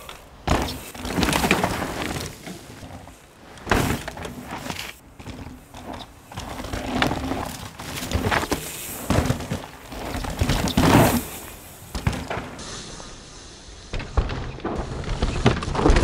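Mountain bike ridden hard down a dirt forest trail: repeated swelling rushes of tyres skidding and tearing through loose dirt in the corners, broken by several sharp thuds of landings and impacts.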